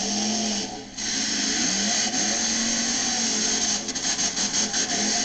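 Jurassic Attack monster truck's engine running at high revs, a loud harsh whine. It drops out briefly about a second in, and near the end comes in quick on-off pulses, about five a second, with the throttle worked while the truck is airborne off a jump.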